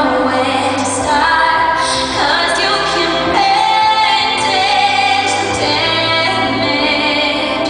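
A woman singing a ballad live with long held notes, over instrumental accompaniment.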